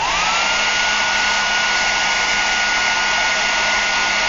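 A small electric blower motor switched on: its whine climbs as it spins up, then it runs steadily with a constant whine over a rush of air.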